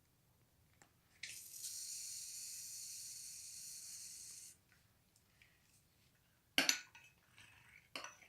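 A steady hiss lasting about three seconds that starts and stops abruptly, then two short sharp clinks, like a utensil against a bowl.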